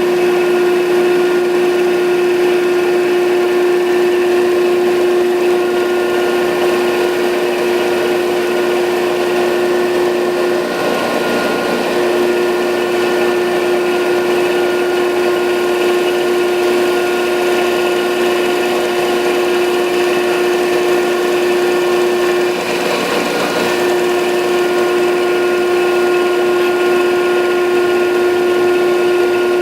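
Landis 1R universal cylindrical grinder running under power: a steady machine hum with a strong tone and higher overtones. The main tone drops out briefly twice, about eleven and twenty-three seconds in.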